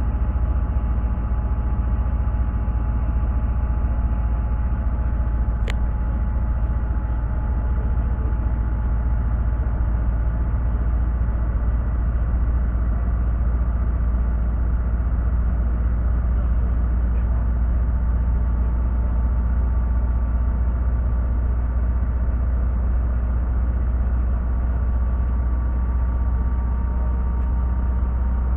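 Coach bus heard from inside the passenger cabin while driving at road speed: a steady low rumble of engine and tyres with a few faint steady whining tones. A single sharp click comes about six seconds in.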